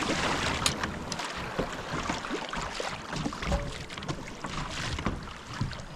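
Sea water slapping and lapping against a kayak's hull, with small knocks and wind on the microphone.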